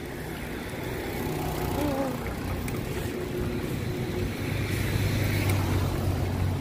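Wind rumble and road noise on a phone microphone moving with a bicycle, with the steady engine hum of passing motor traffic growing louder in the second half.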